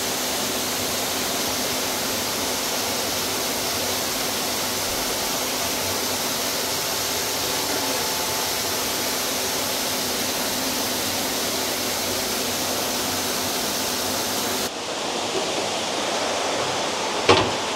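Steady rush of running water with a faint low hum under it. About fifteen seconds in it cuts off abruptly to a quieter background, with one sharp knock near the end.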